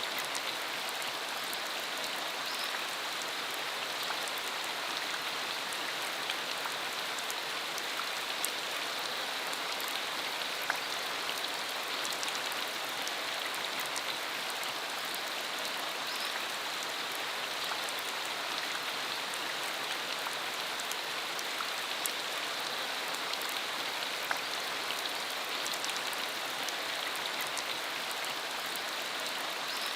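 Steady rain falling, an even hiss with many scattered sharp ticks of individual drops striking the surface.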